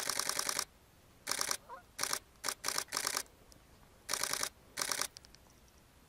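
Digital SLR shutter firing in continuous high-speed bursts, about ten frames a second, in roughly eight short bursts with brief pauses between them.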